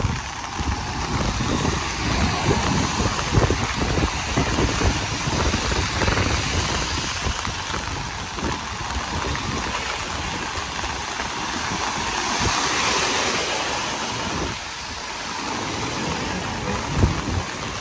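Road traffic on a wet street in light rain: a steady wet hiss over low engine rumble. About twelve seconds in the hiss swells for a couple of seconds as a vehicle passes.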